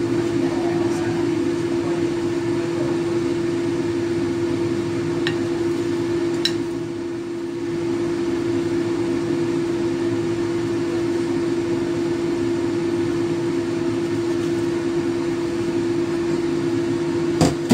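Steady hum of an electric fan motor with one low, even tone, with a few faint light clicks of chopsticks against the plate and a sharper knock near the end.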